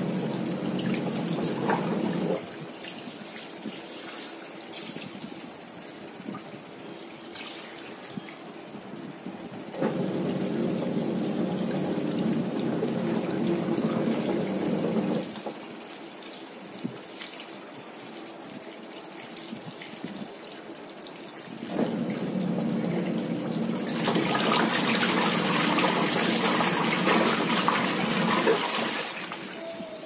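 Water from a hose pouring and splashing into a washing machine's wash tub full of clothes, filling it for a rinse. Three times the wash motor hums on for about five seconds, churning the load, then stops; the splashing is loudest near the end.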